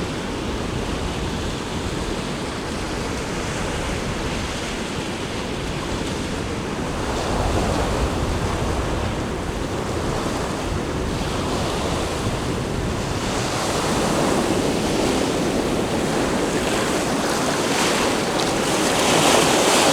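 Sea waves washing onto the shore in slow swells, louder about eight seconds in and again in the last few seconds, with wind on the microphone.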